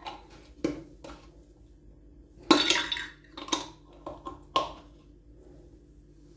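A metal twist-off lid being screwed onto a glass jar: a run of short clinks and knocks of metal on glass, with a longer grating clatter about two and a half seconds in, stopping after about five seconds.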